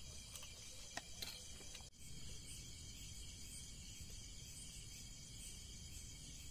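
Steady high-pitched chorus of night insects, crickets, over a low background hum, with a couple of light clicks about a second in.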